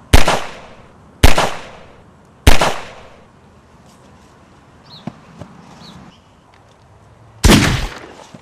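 Gunshot sound effects: three loud shots about a second apart, then, after a few seconds' pause, one more, each with a short ringing tail.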